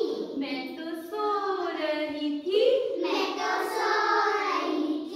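A group of young children singing an action rhyme together in chorus, in a few phrases, the last one drawn out.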